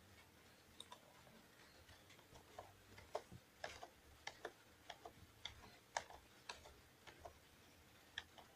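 Faint, irregular clicking of a computer mouse and keyboard, about fifteen sharp separate clicks that come thicker after the first couple of seconds.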